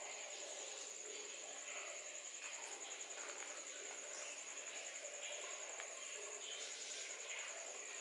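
Insects chirring steadily: a continuous high-pitched trill that pulses rapidly and evenly.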